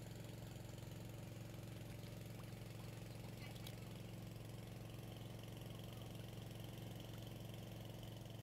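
A small engine running steadily at idle, a low, even hum that cuts off suddenly at the very end.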